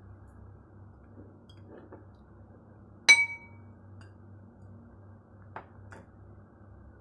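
A single sharp clink of glass or a dish being struck, ringing briefly, about three seconds in; two faint clicks follow near the end.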